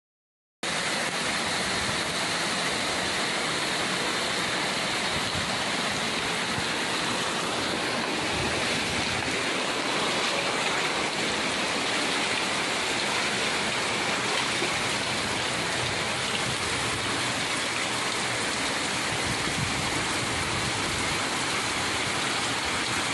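Steady, even rush of heavy water from storm rain or floodwater, starting abruptly after a brief silent cut about half a second in.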